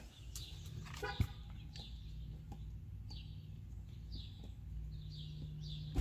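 A bird calling with repeated short chirps that fall in pitch, over a low steady hum, with a few faint clicks.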